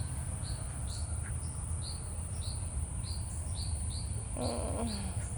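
Outdoor insect chorus: a steady high insect drone, with a short chirp repeating two or three times a second over a low rumble.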